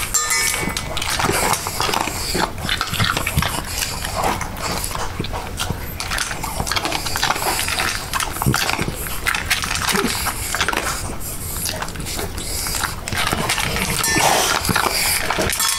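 Small dog eating greedily from a stainless steel bowl: a dense, irregular run of chewing, crunching and smacking, with sharp clicks against the metal bowl.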